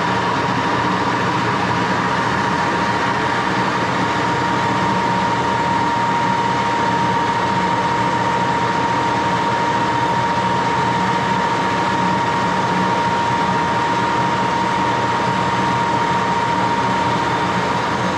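1941 Axelson gear-head lathe running steadily through a turning cut: an even mechanical hum with a constant high whine over it.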